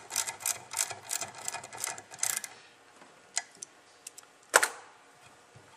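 Ratchet clicking quickly, about five clicks a second, as the fluid tip is tightened into a Lynx 100C spray gun; the clicking stops after about two and a half seconds. A few single clicks follow, and a sharper metal knock about four and a half seconds in.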